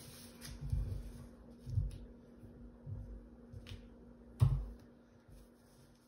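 Hands handling wooden craft-stick fences and paper on a tabletop: soft bumps and brief clicks, with one sharper knock about four and a half seconds in.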